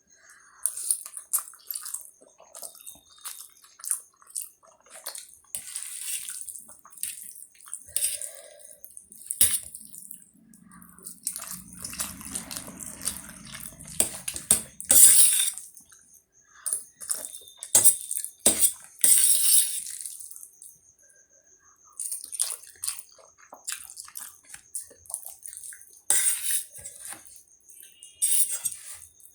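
A person slurping and chewing Maggi instant noodles: wet slurps and mouth sounds come in short, irregular bursts.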